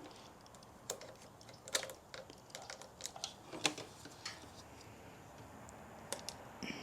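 Irregular light clicks and taps, about eight of them scattered through the first four seconds or so, with one more near the end.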